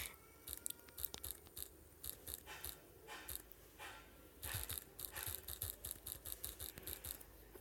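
Faint, irregular quick taps and clicks of fingers typing on a phone touchscreen, coming faster in the second half.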